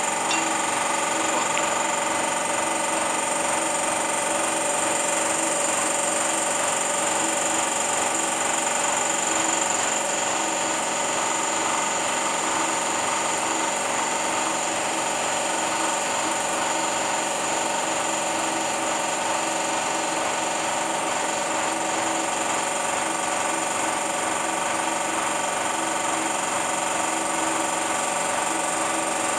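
Steady, unchanging drone of a running motor, with a high whine over it.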